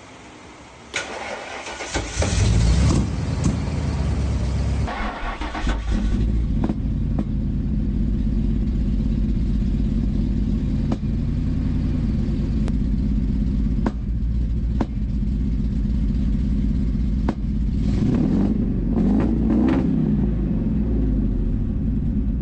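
1998 Ford F-150's 4.6 V8 with a freshly installed Borla exhaust starting for the first time: it cranks briefly, catches with a loud flare about two seconds in, dips for a moment and then runs steadily at idle. The engine note rises and falls again briefly near the end.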